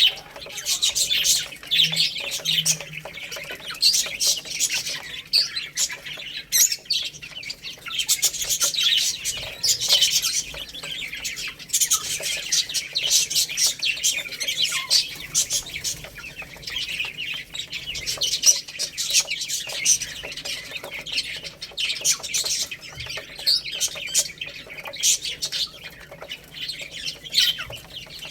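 Many baby chicks peeping continuously, with high-pitched chirps overlapping one another.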